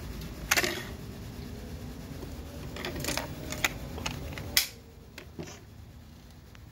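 Knife drawn out of and snapped back into a moulded Kydex sheath: a sharp plastic click about half a second in as the retention lets go, a few smaller clicks and rubbing in the middle, then another sharp click near the five-second mark as the knife locks back in.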